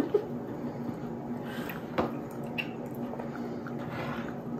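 Quiet room tone with a steady low hum and a few soft clicks, the sharpest about two seconds in.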